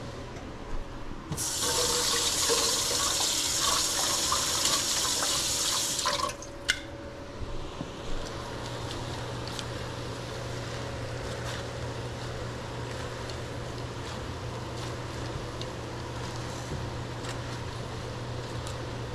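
Kitchen tap running for about five seconds, starting a second in, then stopping, followed by a sharp click. A steady low hum runs underneath throughout.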